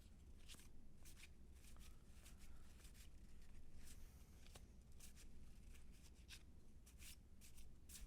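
Cardboard baseball cards slid one by one off a stack as it is flipped through: faint, soft swishes and flicks, unevenly spaced at about two a second.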